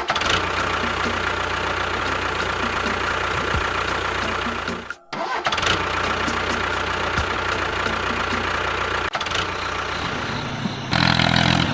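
Engine running steadily, cut off abruptly for a moment about five seconds in and starting again, with a louder change near the end.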